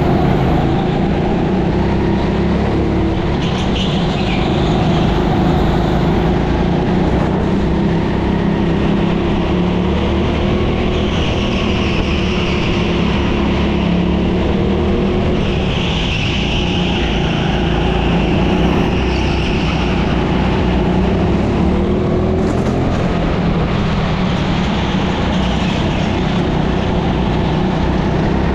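Racing go-kart engine running hard through a lap, a steady buzzing note that wavers a little with the throttle, with two stretches of higher hiss in the middle.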